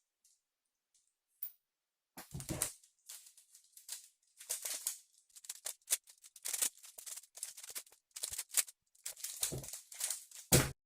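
3x3 speedcube being turned fast: a quick, irregular run of plastic clicks and clacks from the layers turning, starting about two seconds in, with a few heavier knocks, the loudest near the end.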